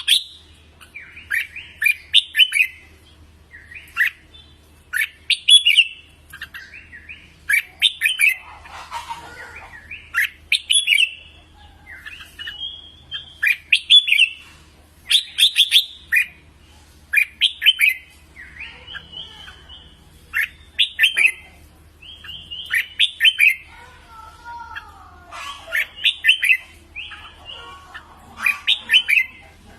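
Red-whiskered bulbul song: short, bright, rapid whistled phrases repeated about once a second, with a few lower, wavering chattering notes mixed in at times.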